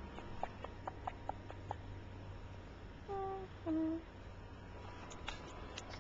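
Several light clicks in quick succession, then two short hummed notes, the second lower than the first.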